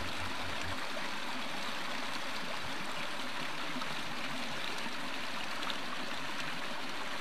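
Creek water running past a beaver dam, a steady, even rush with no breaks.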